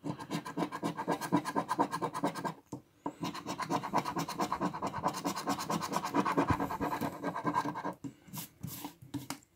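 Large metal coin scraping the silver coating off a paper scratch-off lottery ticket in rapid back-and-forth strokes. There is a short pause about three seconds in, and a few separate strokes near the end.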